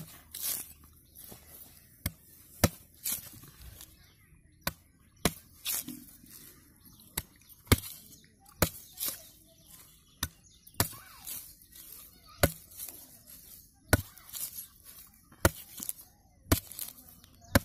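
Curved machete chopping the husk off a green tender coconut: about twenty sharp, short chops at an uneven pace of roughly one a second, each blow slicing away a piece of husk.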